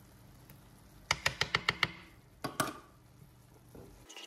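A metal spoon tapping quickly against a frying pan, about eight light clicks in under a second, then two more knocks, as a spoonful of red pesto is knocked off into the sauce.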